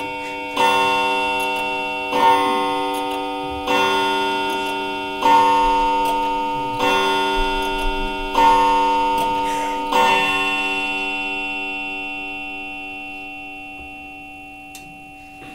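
A clock chime striking seven times, about a second and a half apart, its bell-like tone rich in overtones. The last stroke rings on and slowly fades away.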